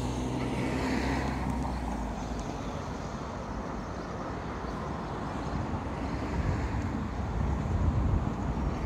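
Tram running on the street tramway: a low steady motor hum fades in the first two seconds, then a heavier low rumble builds, loudest near the end.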